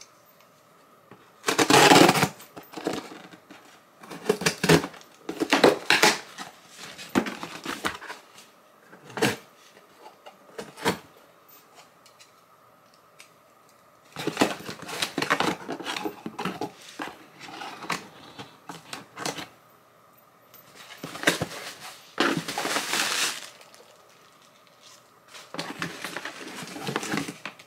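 Cardboard shipping box being opened by hand: the packing tape slit and pulled off and the flaps torn open, in irregular bursts of scraping, tearing and rustling with short pauses between.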